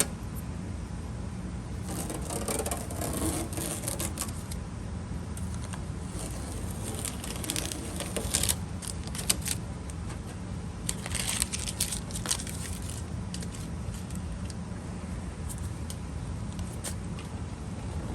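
Hands working with small trim parts and adhesive: scattered rustles, light scrapes and clicks in clusters, over a steady low hum.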